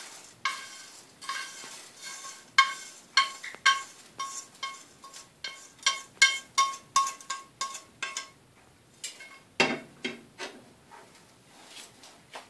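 Wooden chopsticks knocking and scraping against a metal pan as dried anchovies are scraped out of it, each knock leaving a short ring. The knocks come two or three a second for about eight seconds, then a few duller knocks near the end.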